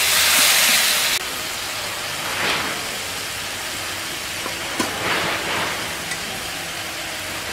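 Chopped onion, tomato and chilli frying in mustard oil in an aluminium kadai sizzle loudly with a splash of water just added, as a spatula stirs them; the sizzle cuts off about a second in. A quieter steady hiss follows, with a few clinks of steel utensils.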